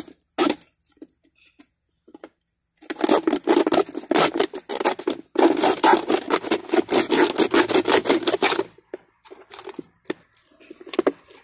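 Knife sawing through the thin plastic wall of a soda bottle, cutting off its top: a quick run of rasping, crackling strokes that starts a few seconds in, lasts about six seconds, then stops.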